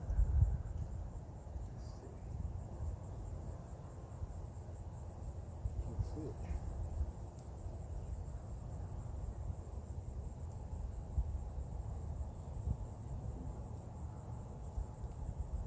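Insects, likely crickets, chirring in a steady fine pulsing trill. Under it runs a louder, uneven low rumble.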